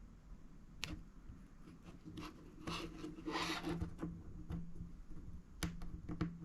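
Small handling sounds from working on an opened iPhone 5: scattered light clicks and a brief scraping rub about three seconds in.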